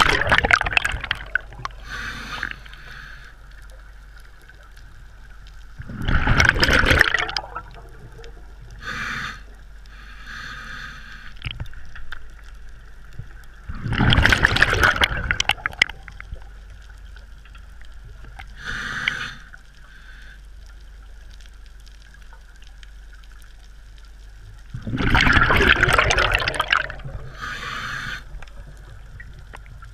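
Scuba diver breathing through a regulator underwater: four loud bursts of exhaled bubbles gurgling past, each lasting a second or two, several seconds apart, with shorter, fainter regulator breaths between them.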